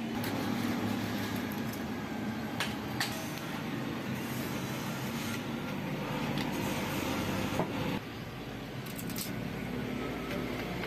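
Thin steel transformer laminations clicking and clinking a few times as they are slid and pressed into the coil bobbins, over a steady background rumble.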